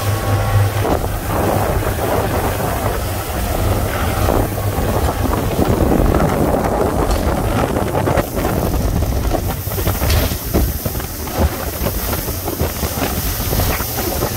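Outboard motorboat running across calm water, with wind rushing over the microphone. A steady low engine hum is clearest in the first few seconds, then sinks into the wind noise.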